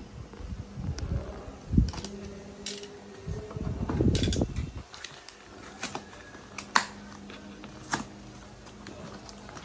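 A cardboard shipping box being handled and torn open by hand: knocks and a sharp thump at first, a longer rustling, scraping tear of the cardboard near the middle, then a few sharp snaps or clicks.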